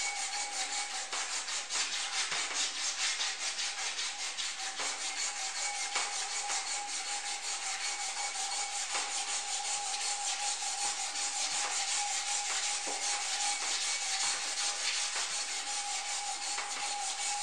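Hand polishing of a sculpture's metal support rod to bring back its shine: a steady rubbing hiss in quick, even back-and-forth strokes.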